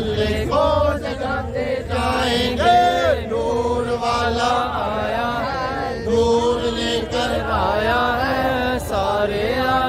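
Men's voices chanting a melodic devotional chant for Milad un Nabi, with long held, wavering notes.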